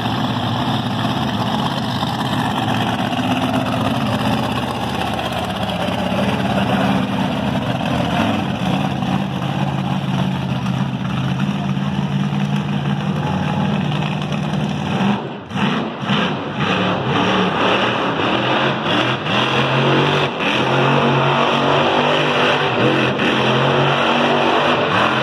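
Monster truck engine revving hard as the truck drives on a dirt track, its pitch rising and falling, with two brief dips about 15 seconds in.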